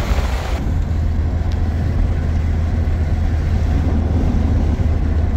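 Steady low rumble of a road vehicle on the move. A brighter hiss cuts off about half a second in.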